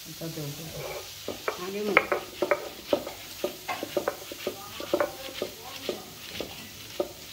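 A cooking utensil stirring food in a pan, clinking and scraping against the metal in irregular strokes about two or three times a second, over a faint sizzle of frying.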